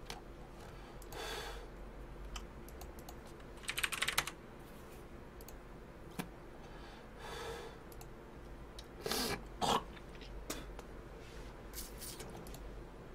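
Quiet computer keyboard typing and clicking: scattered single clicks, a short fast run of keystrokes about four seconds in, and a couple more bursts near the ten-second mark.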